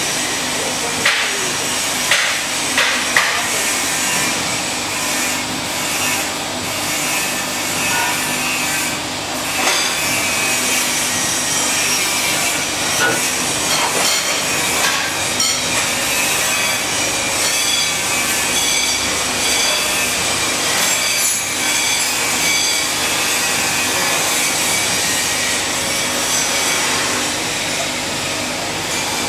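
Deheading conveyor running: the belt and its drive make a steady rubbing, rattling noise with a low hum, and a few sharp clicks and knocks in the first few seconds.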